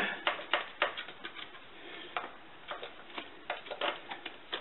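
Ratchet wrench clicking in short, uneven runs of sharp clicks, several a second, working on a wheel's lug nuts.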